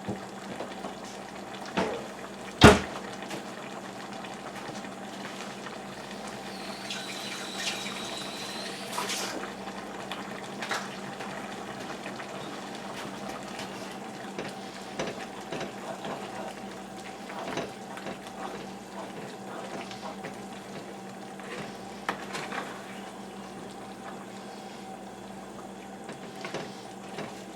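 Cornstarch-thickened stir-fry sauce simmering and bubbling steadily in a pot, with a few sharp knocks, the loudest about three seconds in.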